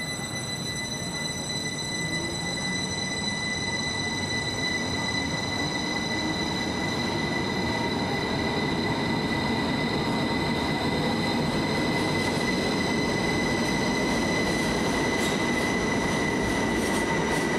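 Heathrow Express Class 332 electric train pulling out of an underground platform and picking up speed past the listener. A steady high-pitched squeal rides over the rumble of the wheels, and the sound grows louder as the train gathers pace.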